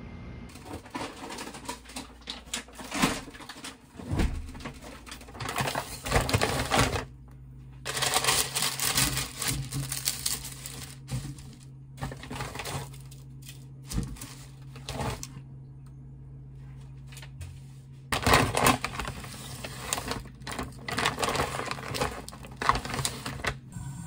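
Kitchen handling sounds: parchment paper and plastic food packaging rustling and crinkling in bursts, with sharp clicks and clatter from utensils and a metal air-fryer basket. A low steady hum runs under the middle part and stops about three-quarters of the way through.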